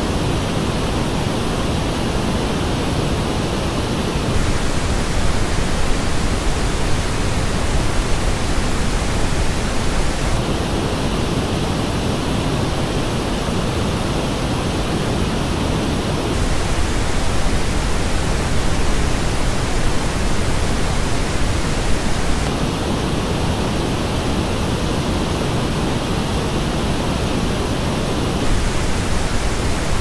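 Pink noise test signal, steady and loud. It switches about every six seconds between the flat original and the same noise as reproduced through Audeze LCD-1 headphones. The headphone version has dips in the upper middle and the high treble: it starts on the headphone version, goes to the original about four seconds in, back to the headphone near ten seconds, to the original at sixteen, to the headphone at twenty-two, and to the original again near the end.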